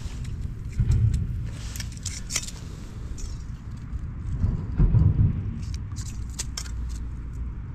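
Small clicks and rustles of ice-fishing tackle being handled, over a steady low rumble, with two louder low bumps about a second in and again about five seconds in.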